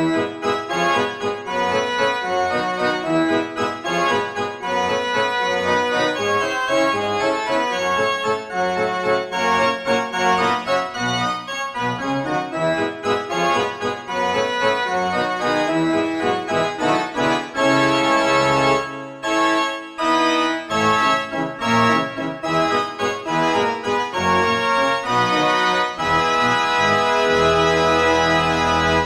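Background instrumental music played on keyboard, with many pitched notes in a steady flow.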